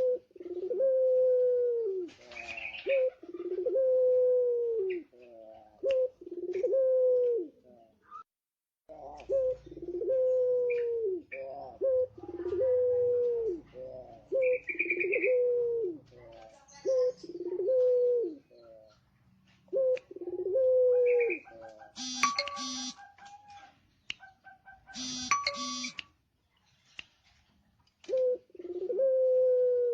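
Male puter pelung (domestic ringneck dove) cooing over and over: long, steady coos, each about a second, that drop in pitch at the end, with a couple of short pauses. Twice, a few seconds before the end, a brief ringing electronic-sounding tone cuts in.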